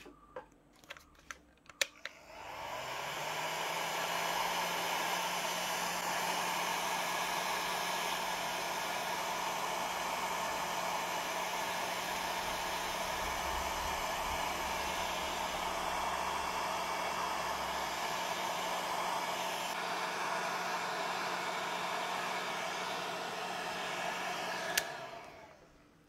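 Handheld heat gun blowing air on a low heat setting (about 80 degrees) to shrink heat-shrink tubing: a few handling clicks, then about two seconds in its fan spins up with a rising hum and blows steadily. Near the end it is switched off with a click and the hum falls away.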